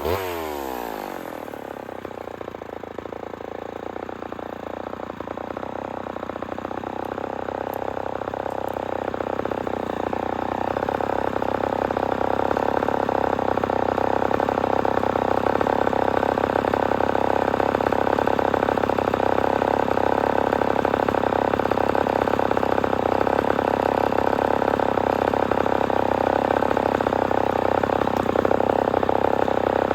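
Homelite XL-12 two-stroke chainsaw dropping off full revs right at the start, then idling steadily, getting gradually louder over the first dozen seconds.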